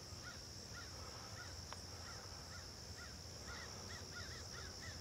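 Faint bird calls: short chirps that rise and fall, repeating about twice a second, over a steady high hiss, with one sharp click a little under two seconds in.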